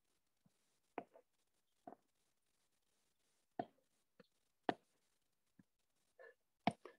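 About ten light, short taps at irregular spacing, the loudest around the middle and just before the end, with near silence between them.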